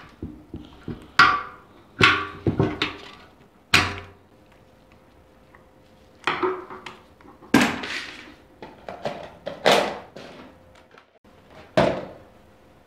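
Hand-work on a motorcycle fuel tank's fittings: irregular sharp clicks, taps and clatters of a tool and the fuel cap parts being taken off, about a dozen knocks, some ringing briefly.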